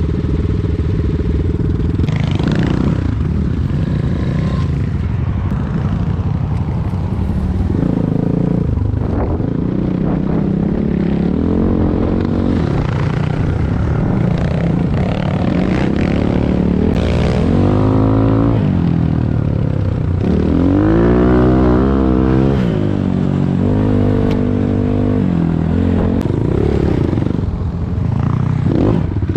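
Enduro motorcycle engine running under load, its pitch repeatedly rising and falling as the throttle is opened and closed.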